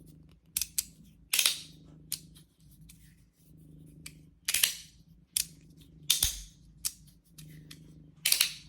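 3D printed magnetic fidget slider being slid back and forth, snapping into place with about eight sharp clacks at irregular intervals, some louder than others, as its very strong magnets pull it shut.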